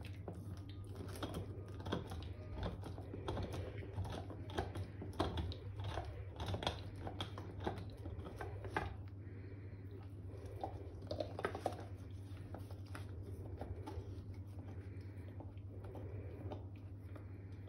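A black Labrador gnaws a hard antler-shaped chew, her teeth clicking and scraping on it in quick, irregular runs. The clicking is busiest through the first half, comes again in a short burst around twelve seconds, then thins out. A steady low hum runs underneath.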